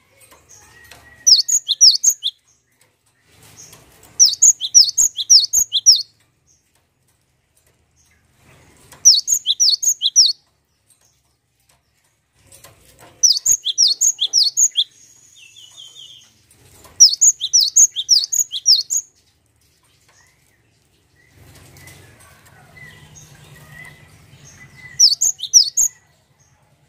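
Cinereous tit (gelatik batu) singing: six short bursts of rapid, repeated high whistled notes, spaced a few seconds apart. Soft fluttering and rustling between the bursts, longest just before the last one.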